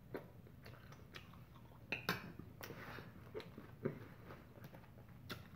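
Quiet chewing, with scattered light clicks of a fork on a plate as siomai is picked at; a few taps stand out about two and four seconds in.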